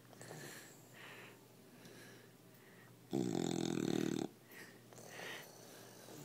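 Seven-month-old bulldog snoring in its sleep: one loud snore about a second long, starting about three seconds in, with softer breaths before and after it.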